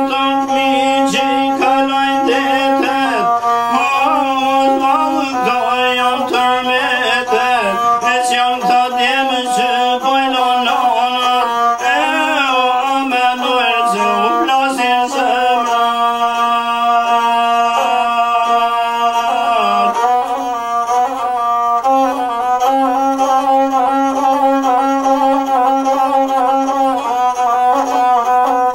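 Albanian folk string instrument playing an ornamented melody with pitch bends over steady held drone notes, with a bowed, fiddle-like tone.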